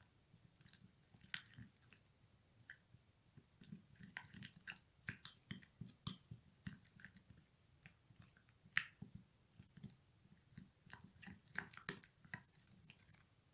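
Plastic spoon stirring thick henna paste in a small glass bowl: faint, irregular wet squelches and clicks of the spoon working the paste against the glass.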